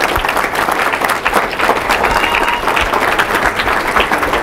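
Audience applauding, many hands clapping steadily in a room.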